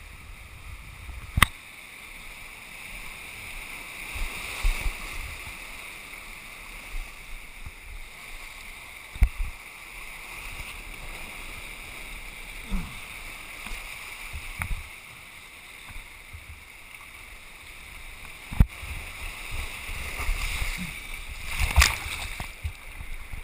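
Ocean surf washing and splashing over rocks close by, with a few sharp knocks. The splashing grows busier and louder near the end as the water reaches the camera.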